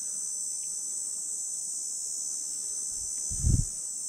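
Steady high-pitched insect chorus shrilling without a break. A brief low thump comes about three and a half seconds in.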